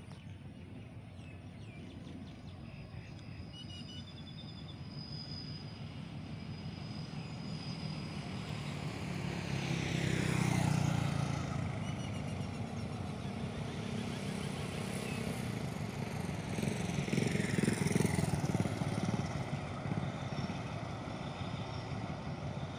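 Road traffic passing close by: a motorcycle goes past about ten seconds in, its engine note rising and then dropping away, and another vehicle passes about eighteen seconds in.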